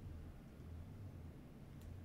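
Quiet room tone: a faint, steady low hum, with one small click near the end.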